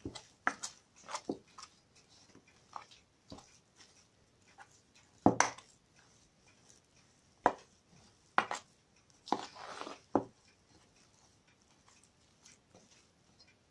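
A spoon working thick curd-cheese dough in an enamel bowl, knocking and scraping against the bowl: a quick run of clicks at first, then single knocks a second or two apart, with one longer scrape about two-thirds of the way through.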